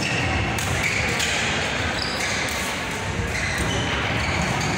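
Badminton doubles rally: rackets striking the shuttlecock and shoes squeaking in short high chirps on the court, over a steady background noise that echoes in a large hall.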